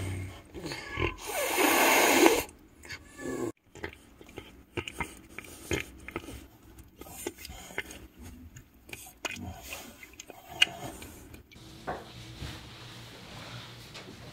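A cat eating wet food: irregular wet smacking, licking and snuffling that stops about eleven seconds in, after a loud noisy sound in the first two seconds. The cat's mouth is diseased, badly enough to need all its teeth extracted, and its nose is inflamed.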